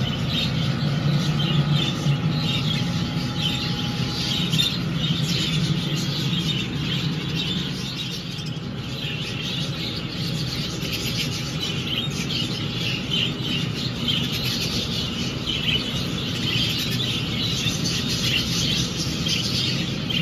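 A roomful of caged budgerigars chattering and warbling, a busy, continuous twitter of many birds at once, over a low steady hum.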